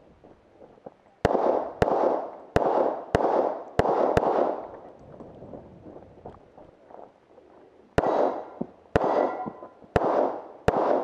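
Rapid pistol fire: six shots in quick succession in the first few seconds, a pause of about four seconds, then more shots about a second apart near the end, with steel targets ringing after them.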